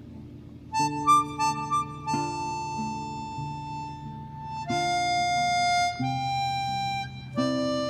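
Background music led by a harmonica: a few short notes, then long held notes over a guitar.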